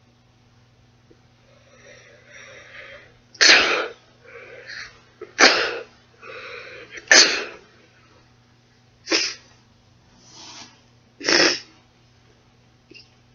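A person sneezing: three loud sneezes close together, each preceded by gasping in-breaths, then two shorter, sharp bursts a couple of seconds apart.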